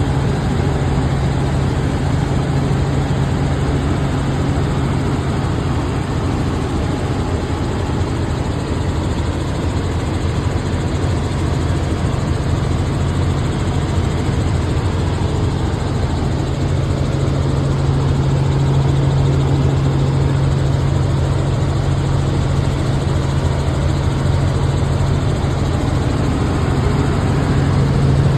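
Helicopter in flight heard from inside the cabin: a loud, steady low drone of engine and rotor under a constant rushing noise.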